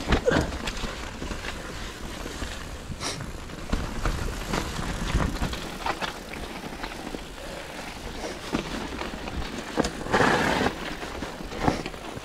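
Commencal Meta SX mountain bike riding down a wet dirt trail: tyres rolling over dirt and roots, with frequent clicks and rattles from the bike and wind rumble on the microphone. A louder rush of noise comes about ten seconds in.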